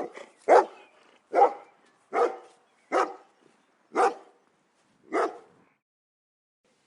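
A dog barking: six sharp barks, spaced further and further apart, stopping a little past halfway through.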